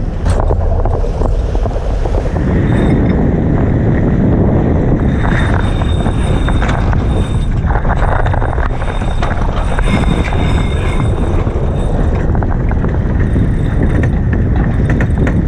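Wind buffeting the microphone on a sailboat under way, mixed with water rushing past the hull, with scattered clicks and knocks.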